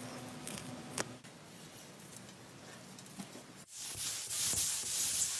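Faint handling noise with a sharp click about a second in, then a steady hiss from a paint spray gun that starts near the end, spraying the fuel tank.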